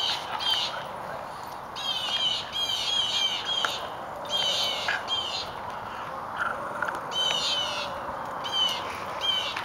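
A songbird singing, repeating a short phrase of quick downward-sweeping notes over and over, against a steady background hiss.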